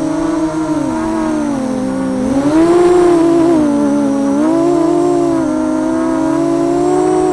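Brushless motors and propellers of a 250-size FPV racing quadcopter, recorded from its onboard camera, whining in flight. The pitch drops about a second in, jumps up sharply and loudest around two and a half seconds, dips again near four seconds, then climbs back as the throttle changes.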